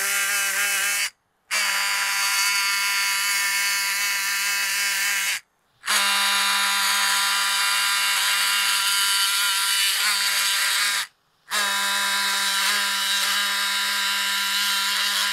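Powered surgical bone instrument running on the patella during its preparation, a steady buzzing pitch. It runs in four stretches, cutting out briefly three times.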